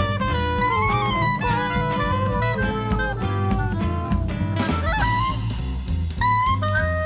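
Live New Orleans-style jazz band playing an instrumental passage, with a melody line that slides between notes over a steady bass.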